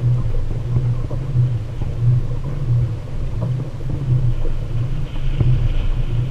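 Low rumble on a kayak-mounted action camera's microphone, swelling and fading about one and a half times a second, with a few faint knocks.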